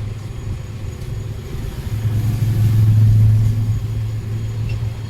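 Low steady rumble of road traffic that swells to its loudest about two to three and a half seconds in, then eases, as a vehicle passes.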